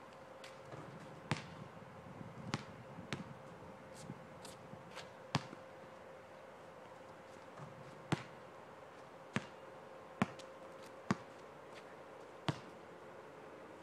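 Basketball bouncing on an asphalt court during free-throw shooting: single sharp thuds, about ten in all, spaced roughly a second apart.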